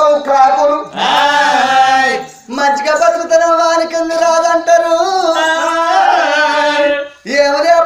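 Men singing Telangana Oggu Katha folk song in long held, chanted lines, with short breaks about a second in, about two and a half seconds in, and near the end.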